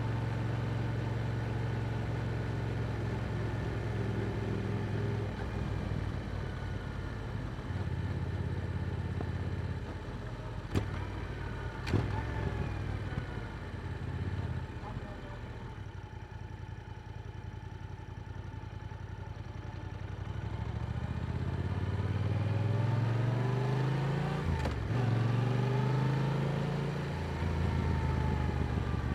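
Yamaha R7's parallel-twin engine through an Akrapovic exhaust while riding, holding a steady note at first, then quieter off the throttle with two sharp clicks about eleven and twelve seconds in. From about twenty seconds in it pulls up in pitch under acceleration, breaks off briefly and climbs again.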